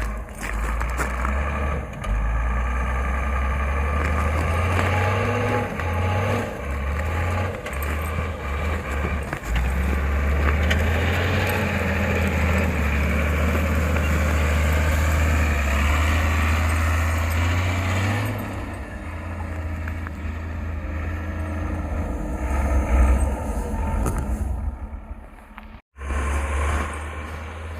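A vehicle driving off-road, a loud low rumble with noise over it, broken by a brief cutout near the end.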